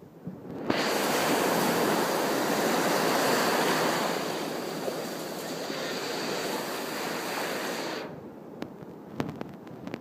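Ocean surf washing ashore: a steady rushing noise that starts abruptly about a second in and cuts off suddenly near the end, followed by a few faint clicks.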